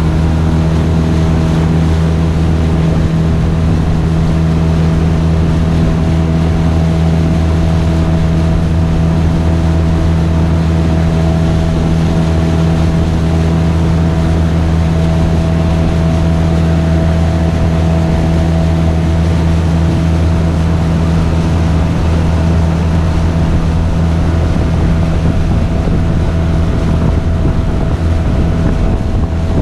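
Honda 8 hp twin-cylinder four-stroke outboard running steadily at speed, with no change in pitch or level, pushing a loaded 14-foot aluminum boat at about 15 mph.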